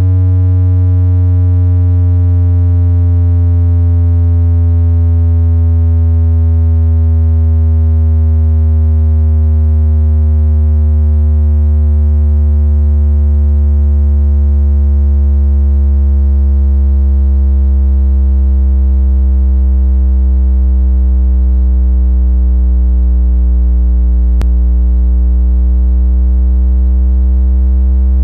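Speaker-cleaner (water-eject) tone: a loud, low synthesized tone with a buzzy edge of overtones, sliding slowly down from about 144 Hz to under 100 Hz and then turning back up toward about 130 Hz near the end. A low tone like this is played to shake water out of a phone speaker. There is a faint click where the pitch turns.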